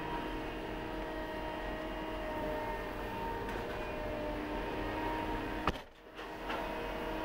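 Steady hum of running heavy machinery, heard from inside a cab, with faint steady whining tones over it. About five and a half seconds in there is a sharp click, and the sound dips for half a second before the hum returns.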